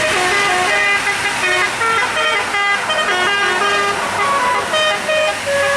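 Bus 'telolet' musical air horn playing a fast tune: short notes stepping up and down in pitch, several to a second.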